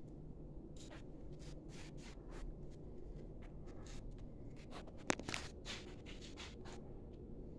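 A run of short, light scrapes and rubs with one sharp click a little after five seconds in, over a low steady hum.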